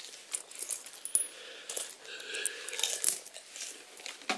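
Coins clinking as they are handled: a scattered string of small, sharp clicks and clinks.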